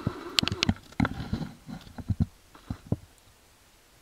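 Footsteps through forest undergrowth: a string of irregular sharp cracks and knocks from twigs and dry leaf litter, thinning out and fading in the second half.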